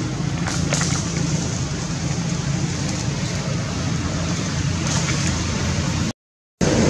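Steady low rumbling background noise, outdoors, with no clear single event. It cuts out to total silence for about half a second near the end.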